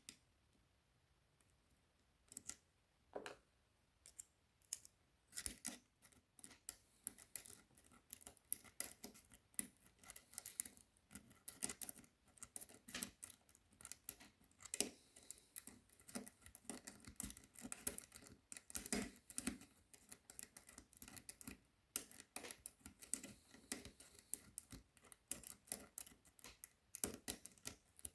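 Hook pick clicking and scraping against the pins inside a Zeiss Ikon N1 pin-tumbler cylinder while its spool pins are being picked. A few separate clicks at first, then quick irregular clicking for the rest.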